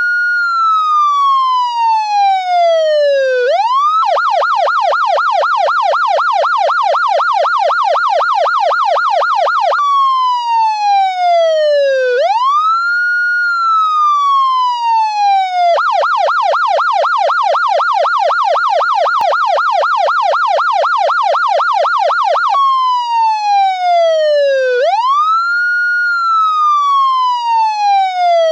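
Police siren alternating between a slow wail, each sweep rising quickly and falling over about three seconds, and a rapid yelp of about four sweeps a second. It changes from wail to yelp twice, each yelp lasting about six seconds, and ends on the wail.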